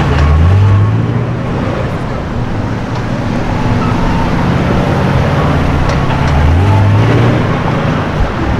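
Car engine accelerating in street traffic, its pitch climbing just after the start and again about six seconds in, over steady traffic noise.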